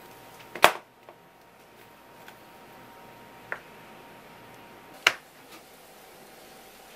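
Two sharp knocks from handling on a wooden cutting board and a metal tray, about half a second in and again about five seconds in, with a smaller tick between them, over a faint steady hum.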